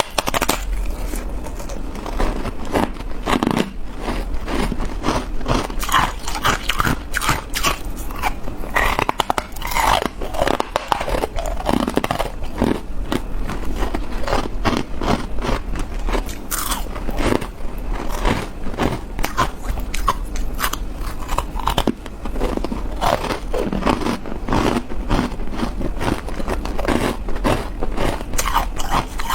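A person biting into white ice, one crunching bite after another, crackling as it breaks.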